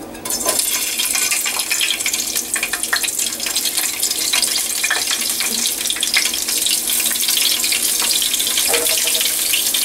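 Slit green chillies hitting hot oil in a frying pan: a sudden burst of sizzling about half a second in, then steady crackling and spitting as they fry.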